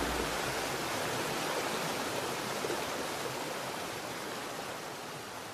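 Small river waterfall pouring into a rock pool: a steady rush of water that slowly fades out.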